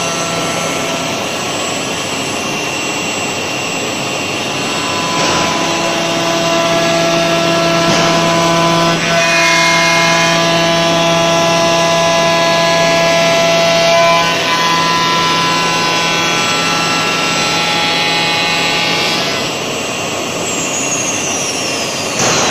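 Four-axis CNC machine's spindle whining steadily as it cuts a chair part, the pitch of the whine shifting a few times as the cut changes. Near the end a high tone falls in pitch.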